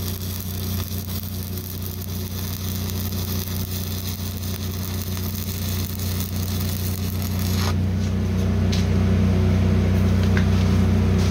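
Stick-welding arc crackling and hissing steadily as the electrode burns along a steel patch plate. The arc breaks off about eight seconds in, leaving a steady low machine hum.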